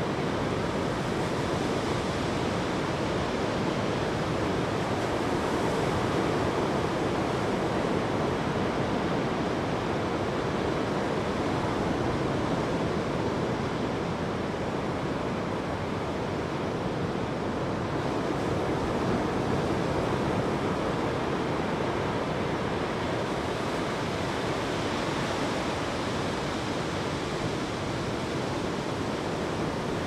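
Ocean surf breaking on a beach: a continuous wash of waves that swells and eases only slightly.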